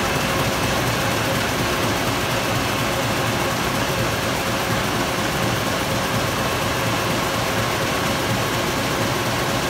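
Komori Lithrone 29-inch five-colour sheetfed offset press with coater running: a steady mechanical whir with a constant high hum and no change in pace.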